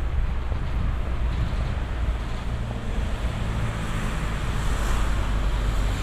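Road traffic: a vehicle passing with engine hum and tyre noise that swells about four to five seconds in, over a constant low rumble.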